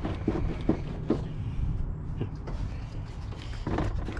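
Several short knocks and clunks from work on a pickup truck's battery, over a steady low rumble.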